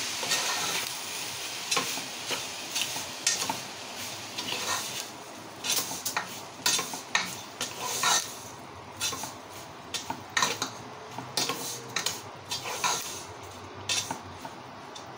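Spatula stirring sugared vermicelli in a nonstick pot: irregular scrapes and knocks against the pan. A light sizzle fades away about halfway through.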